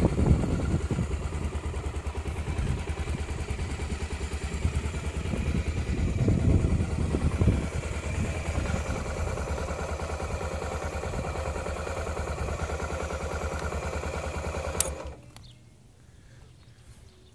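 Honda XR250 Tornado's single-cylinder four-stroke engine idling steadily, then shut off with a click about fifteen seconds in, the running sound cutting off suddenly.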